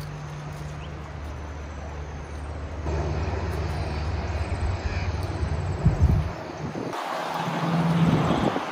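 Steady low hum of road traffic from a nearby main road, which drops away about six seconds in; a louder rush of noise rises near the end.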